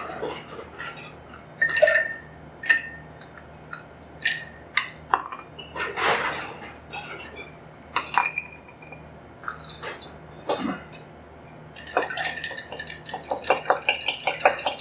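Ice clinking and knocking as it goes into a glass mixing glass, in scattered separate clinks. About twelve seconds in, a bar spoon starts stirring the ice around the mixing glass, a quick, even run of about four or five clinks a second.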